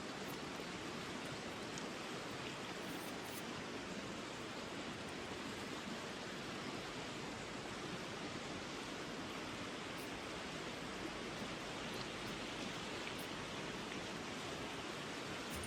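Mountain stream flowing: a steady, even rush of running water.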